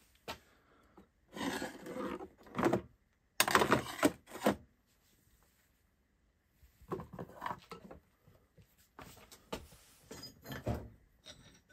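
Hand tools clattering as someone rummages through them, in several irregular bursts with a short lull in the middle.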